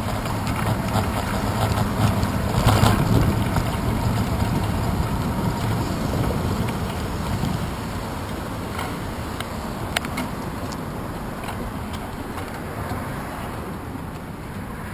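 Wind buffeting the microphone of a handlebar-mounted camera on a moving bicycle, a dense rushing noise that is strongest about three seconds in and eases off towards the end as the bike slows. A single sharp click sounds about ten seconds in.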